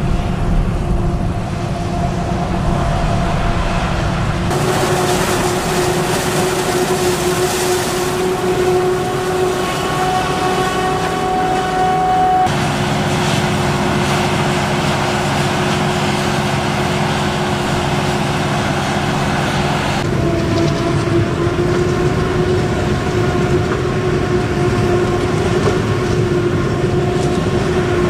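CLAAS self-propelled forage harvester chopping maize, with a truck running alongside: a steady heavy machinery rumble with a held whine. The sound changes abruptly three times.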